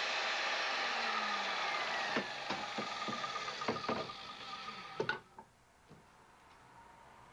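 Small power saw running and cutting thin wood strips, with several sharp clicks and knocks from the wood. It shuts off suddenly about five seconds in, leaving only a faint hum.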